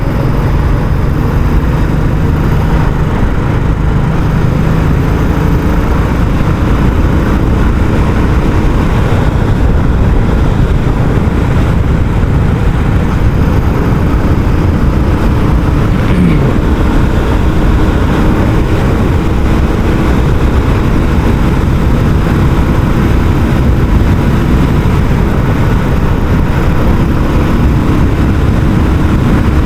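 Royal Enfield Classic 350 single-cylinder engine running on stock exhaust while the motorcycle is ridden along, a steady thump whose pitch shifts a little a few times, with a brief falling tone about halfway through.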